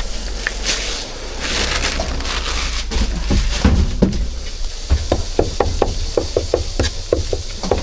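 Cleaver chopping meat on a wooden chopping board for roujiamo filling. The sharp chops come in a quick even run of about five a second in the second half, over a steady low hum.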